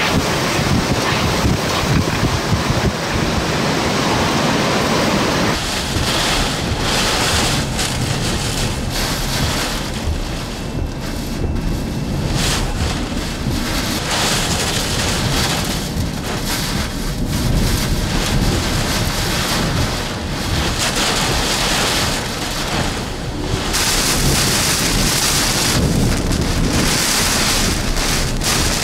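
Hurricane-force wind and driving rain buffeting the microphone, the noise swelling and easing with each gust.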